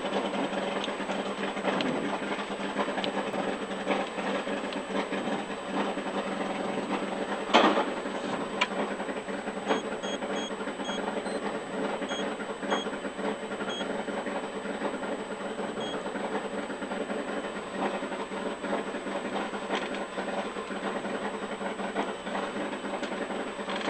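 Rally car engine idling steadily, heard from inside the cabin with the car stationary. A single knock sounds about seven and a half seconds in, and a few faint short beeps come in the middle.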